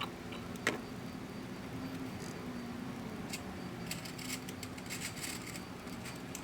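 Light metallic clicks and rattles of hand tools at work on an outboard's flywheel puller, with one sharp click early on and a cluster of small rattles in the middle, over a faint steady hum.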